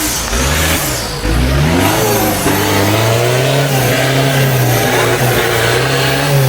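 Off-road 4x4's engine revving, its pitch swinging up and down a few times, then held high and fairly steady from about two seconds in.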